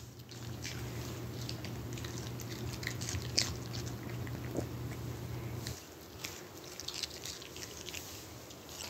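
A Chihuahua chewing a green bean treat: scattered small wet clicks and crunches. A low steady hum lies under it and stops about two-thirds of the way through.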